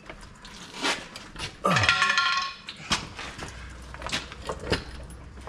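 Scattered metallic clinks and knocks of parts being handled on a truck's underside. A brief pitched sound slides down in pitch about two seconds in and is the loudest thing heard. A low steady hum sets in about three seconds in.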